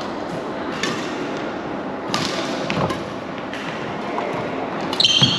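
Badminton rackets striking a shuttlecock during a rally: several sharp cracks about a second apart, over the echoing noise of a busy sports hall. Near the end comes a louder burst with a short high squeak.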